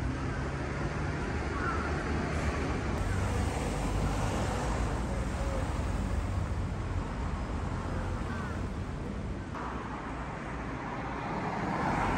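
Steady road-traffic noise from cars, with a low rumble.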